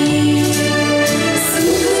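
Two women singing a Malayalam Christian song as a duet through handheld microphones, a long held note moving to a new note near the end.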